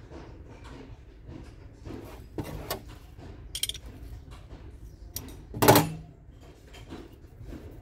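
A ring spanner and a steel diesel fuel injector handled together: scattered light metal clicks, a short ringing clink about halfway through, and one louder thunk a little later.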